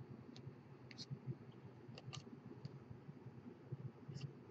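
Faint, scattered small clicks as a small screwdriver is worked inside the wire coils on a Tugboat RDA's deck to tighten them. There are about six ticks at uneven intervals over low room noise.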